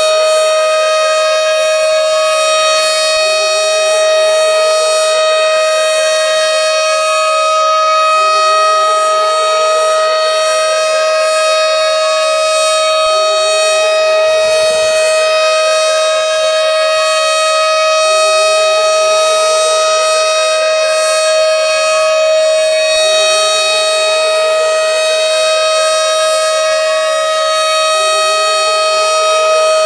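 Tornado siren sounding: a held steady tone with a second tone over it that rises in pitch again and again, about every five seconds.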